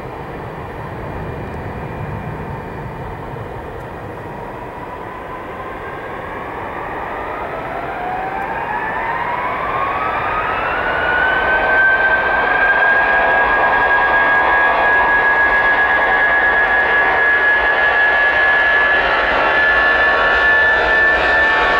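Airbus A320's twin IAE V2500 turbofan engines spooling up to takeoff thrust at the start of the takeoff roll. A whine rises in pitch over several seconds, about a third of the way in, then holds steady as the engine noise grows louder and stays loud.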